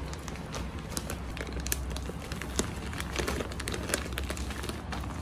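Crinkling and rustling of a grow kit's packaging being handled, with many small irregular clicks.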